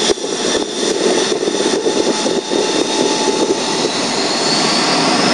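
Jet airliner's engines spooling up to takeoff thrust: a loud, steady rush of engine noise that keeps getting louder, with a high whine rising near the end.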